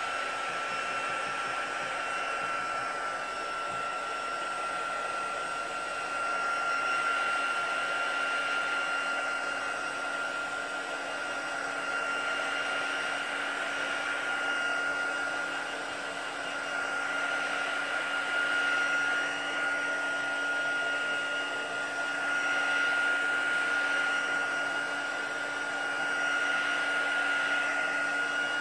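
Handheld hot-air dryer running steadily, a blowing rush with a constant whine, as it dries freshly applied chalk paste on a stencilled wood board. The sound swells and eases a little as the dryer is moved over the design.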